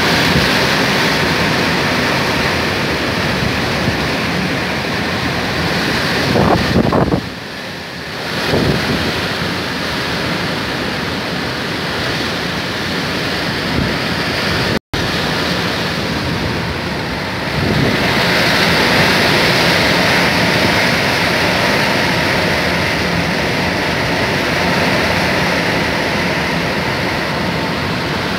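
Cyclone wind gusting hard through palm and other trees, the gusts buffeting the microphone as a loud, steady rushing. It drops to a brief lull about seven seconds in, then builds again after the middle.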